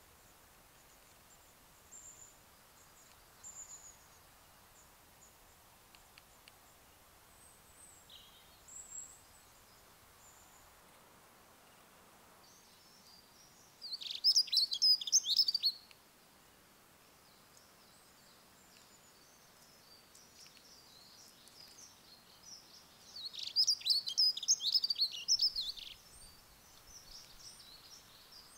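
Small songbird singing outdoors: a few faint high chirps at first, then two loud bursts of rapid, twittering song, about two and three seconds long, the second near the end.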